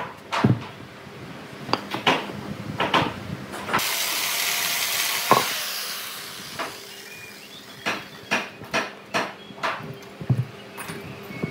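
Heavy sawn log blocks being tipped, rocked and set down on a sawdust-strewn concrete floor: a series of wooden knocks and thuds, with a rushing hiss for about two seconds in the middle.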